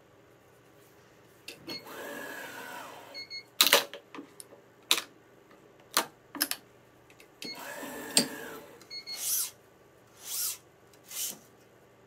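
Yonex ES5 Protech stringing machine's tension head pulling the string to tension twice, each pull a motor whine of about a second and a half with short high tones as it starts and stops. Between and after the pulls come sharp clicks of the string clamps and short rustles of string being handled.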